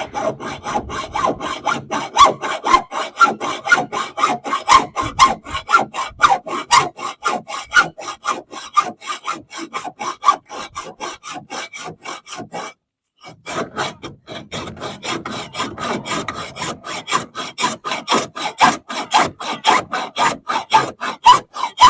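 Hand saw with a metal-cutting blade sawing through a boat's metal gunwale in steady back-and-forth rasping strokes, about three a second. The sawing stops for about a second midway, then carries on.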